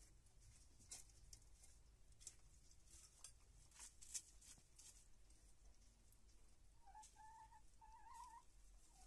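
Hens pecking at grain, faint sharp taps of beaks on feed and the clay feed bowl in the first half. Near the end a hen gives a short, soft call in two parts.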